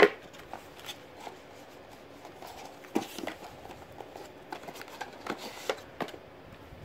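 Cardboard phone box and bagged accessories being handled on a table: scattered taps and knocks with light rustling, the sharpest knock at the very start.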